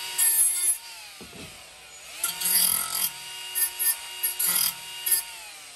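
Milwaukee 12V cordless right-angle grinder spinning up and grinding the rusty backs of swingback mower blades, flattening them in a few short bites. It runs twice, winding down about two seconds in, starting again, and winding down near the end.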